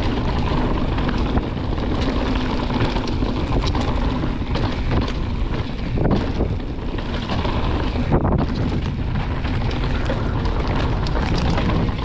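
Wind rushing over an action camera's microphone while a YT Jeffsy mountain bike rolls down a dirt trail, its tyres running on the dirt and the bike clattering over bumps in many short knocks.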